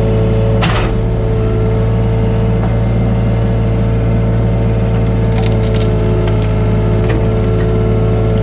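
Hitachi mini excavator's diesel engine running steadily while its bucket digs into a pile of dry cut brush. Branches crack and snap against the bucket, with one sharp crack about a second in and a few more near the end.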